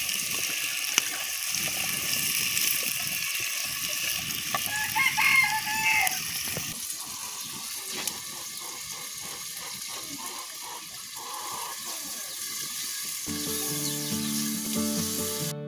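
A rooster crows once, about five seconds in, over a steady hiss that cuts off shortly after. Acoustic guitar music comes in near the end.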